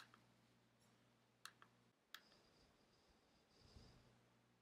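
Near silence with a few faint, short computer mouse clicks.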